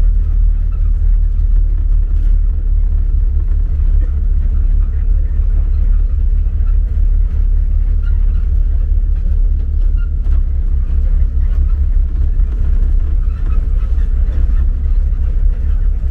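Safari vehicle driving along a dirt forest track: a loud, steady low rumble of engine and road noise.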